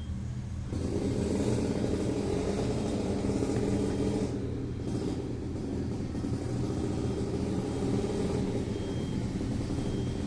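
A steady low rumble that gets louder about a second in and then holds even.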